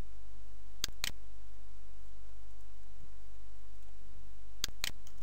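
Computer mouse clicked in two quick pairs, one about a second in and another near the end, over a steady low hum.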